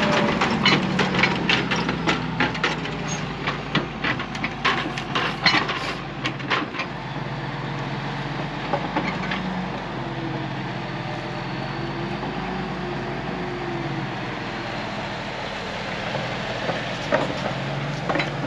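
Diesel engine of a Bell 4206D tractor running steadily as it turns around pulling a Soil-Max tile plow, with a quick run of sharp clanks and cracks over the first several seconds and a few more near the end.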